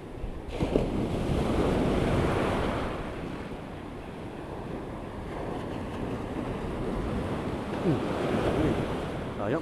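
Sea surf breaking and washing in close, with wind on the microphone. The wash swells about half a second in and fades after about three seconds; a second wave breaks near the end.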